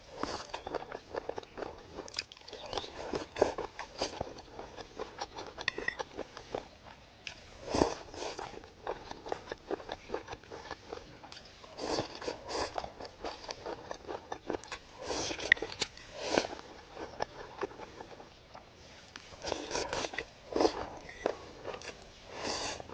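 A person eating, biting and chewing crunchy food with close crackling crunches that come in clusters every few seconds.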